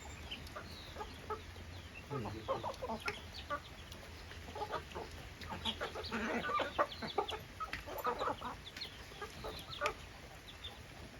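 A flock of desi chickens clucking, many short overlapping calls, busiest in the middle.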